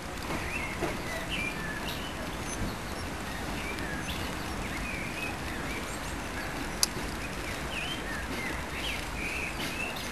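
Small birds chirping repeatedly in short, quick calls over a steady low background noise, with one sharp click about seven seconds in.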